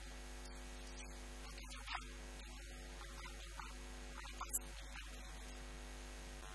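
Steady electrical mains hum, a low buzz on the recording, with a few faint, brief sounds on top.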